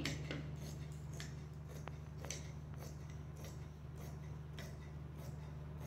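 Scissors cutting through doubled santoon fabric: a steady run of short snips, about three a second.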